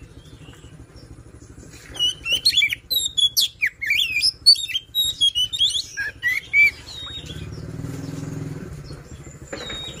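Oriental magpie-robin (kacer) singing a loud, rapid run of varied whistles and chirps, sweeping up and down, for about five seconds starting about two seconds in. Near the end a low rumble swells and fades, and there is a short knock.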